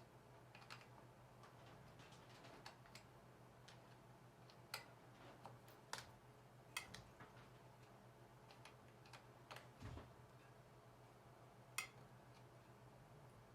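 Scattered light metallic clicks and taps, irregularly spaced and about a second or more apart, of a hex key working on a mountain bike's disc-brake caliper mounting bolts, the sharpest click near the end. A faint steady hum lies underneath.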